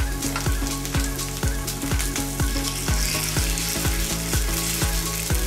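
Vegetable-and-batter pancakes (danmuji buchimgae) sizzling steadily in oil on a pan over low heat. Background music with a steady beat runs underneath.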